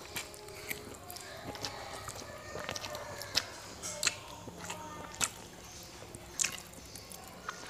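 Close-up eating sounds of Javanese fried noodles: chewing and sucking in strands, with many short, wet mouth clicks and smacks.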